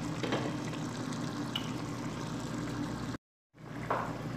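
Pot of chicken pieces boiling in water, a steady bubbling hiss that cuts out briefly about three seconds in.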